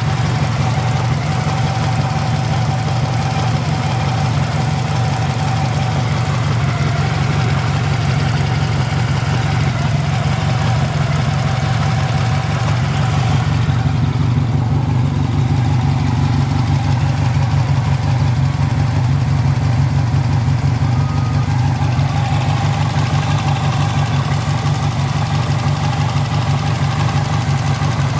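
Honda VF750F's V4 engine idling steadily, with an abnormal mechanical noise present in the engine.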